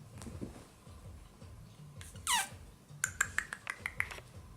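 Ragdoll kitten giving one short mew that falls in pitch, followed about a second later by a quick run of about eight sharp clicks.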